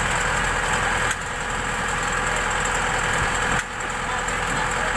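An engine running steadily at idle, with two sudden brief drops in level.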